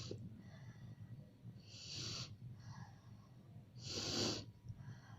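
A person breathing deeply in and out during a steam inhalation over hot water for cough relief: airy breaths about every two seconds, with softer breaths between.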